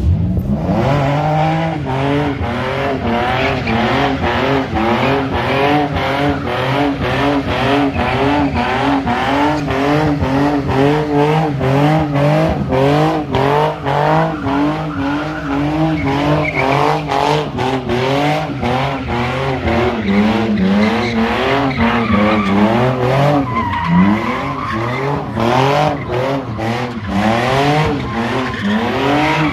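Nissan 350Z doing donuts: its engine revs rise and fall about twice a second as the throttle is worked, over tyres skidding and squealing on the asphalt. In the last several seconds a steadier, high-pitched tyre squeal comes in.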